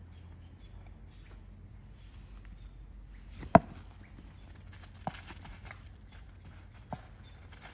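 Quiet background with one sharp knock about three and a half seconds in, then two fainter knocks a second and a half and three seconds later, among light taps.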